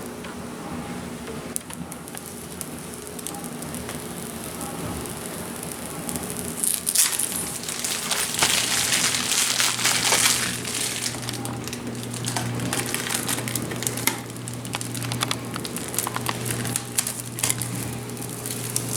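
Protective plastic film being peeled off new PC parts, crinkling and crackling, loudest in a stretch about seven to ten seconds in. A low steady hum joins about eight seconds in.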